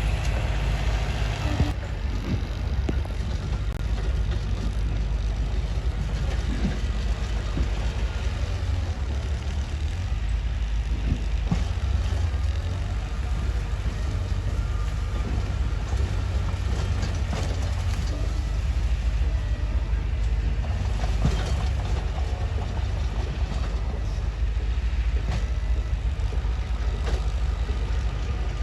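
Mitsubishi bulldozer's diesel engine running with a steady low rumble, with scattered clanks and knocks from its steel crawler tracks.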